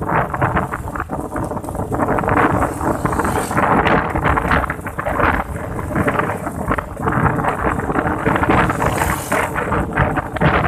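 Strong wind buffeting the microphone in a loud, uneven rumble that rises and falls, with faint steady tones under it.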